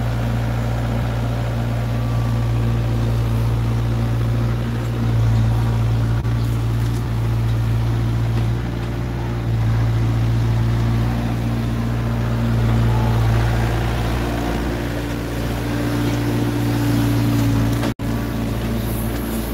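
Hyundai HW60 wheeled excavator's diesel engine running as the machine drives slowly, a steady low drone that swells and eases every few seconds. The sound cuts out for an instant near the end.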